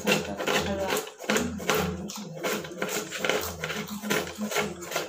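Knife chopping vegetables on a cutting board: a quick, uneven run of knocks, over a low pitched sound.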